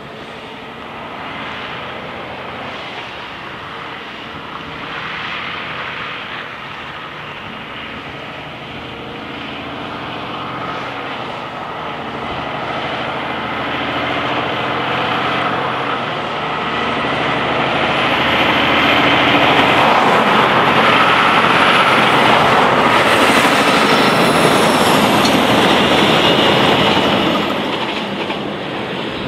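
Diesel engine and tyres of a cab-over prime mover pulling a road train of two bulk tanker trailers. The sound grows louder as it pulls away and comes past, and a high whine rises and falls several times. It is loudest around twenty seconds in and drops away near the end as the truck moves off.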